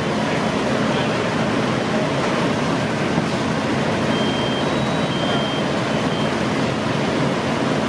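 Fire engines' diesel engines running steadily at a fireground to drive their pumps: a loud, unbroken rumble. A few short high beeps come around the middle.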